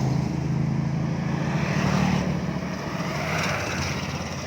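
Vehicle engine running steadily with swells of rushing air or passing traffic, slowly fading toward the end.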